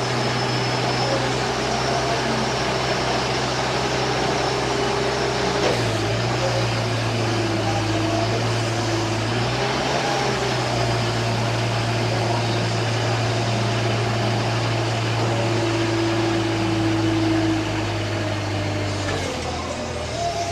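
Combilift four-way forklift running with a steady low hum, its pitch wavering briefly about six seconds in and again around ten seconds in, and changing near the end.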